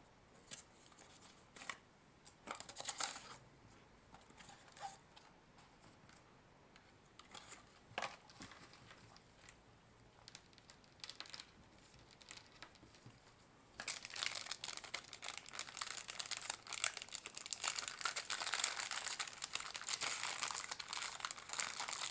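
Packaging being handled and crinkled. There are scattered light rustles and clicks at first, then steady, louder crinkling from about two-thirds of the way in.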